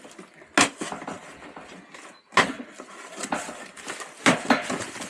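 Cardboard boxes and packaged ride-on toy parts being handled and unpacked, with rustling and scraping and three sharp knocks spread through.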